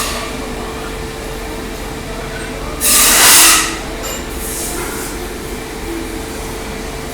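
Mini CNC router running its program as a dry-run simulation: a steady machine hum with one constant tone. About three seconds in, a louder hiss lasts just under a second, with a fainter one soon after.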